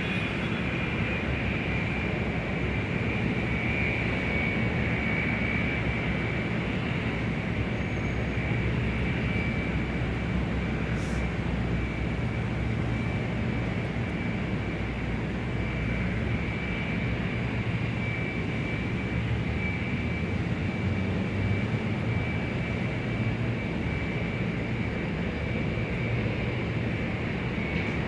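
Large-airport ambience: steady aircraft noise, a constant high whine over a low rumble, unchanging throughout.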